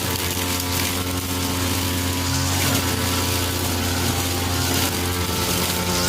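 Petrol brush cutter running steadily at working speed, cutting through tall grass.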